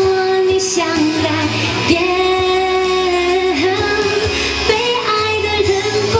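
A woman singing a Mandarin pop song live into a handheld microphone over backing music. She holds a long, steady note about two seconds in.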